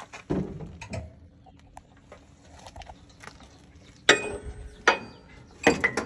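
Several short bursts of metal-working noise, each under a second, from work on a truck frame around a cut lockbolt.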